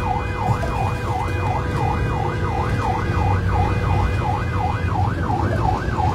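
Rescue van's electronic siren sounding a fast wail that rises and falls about two and a half times a second, heard from inside the cab over the steady rumble of the engine and road.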